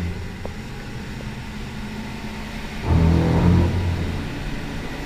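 A boat's engines running at speed, with the rush of wind and water over the boat. The engine note swells about three seconds in.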